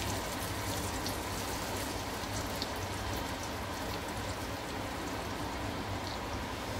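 Cornflour-coated potato pieces frying in hot oil in a frying pan: a steady sizzle with scattered small pops.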